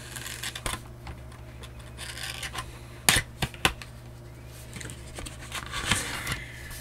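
Cardboard packaging being handled: rubbing and scraping, with a few sharp knocks a little after three seconds in.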